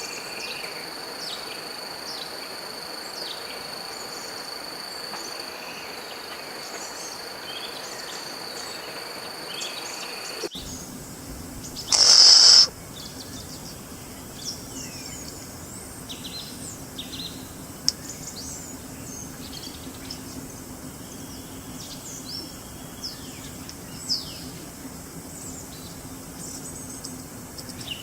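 Wild nature soundscape: a steady high-pitched insect drone with faint bird chirps, then about ten seconds in it switches abruptly to a chorus of many small birds chirping and calling. A single loud, brief burst, the loudest sound here, comes just after the switch.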